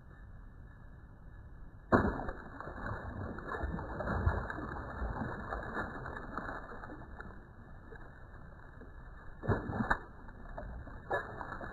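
A largemouth bass strikes a topwater frog lure on the lily pads with a sudden loud splash about two seconds in, followed by irregular splashing and thrashing in the pads as the hooked fish is fought, with another sharp burst of splashing near the end.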